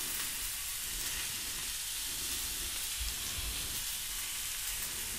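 Pieces of meat sizzling steadily in a frying pan.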